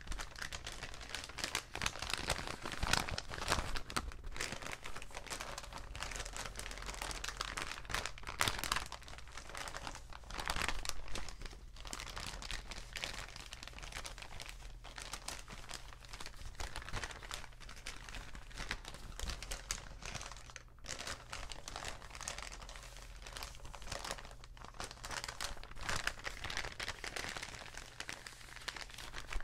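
Paper bags being crinkled and crumpled: a continuous run of dense, crisp crackling, with a short pause about twenty seconds in.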